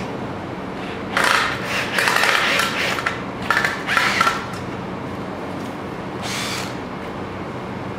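Cordless drill-driver driving screws into the metal frame of a flat-packed wall cabinet, in several short runs between about one and four and a half seconds in, with one more short burst about six seconds in.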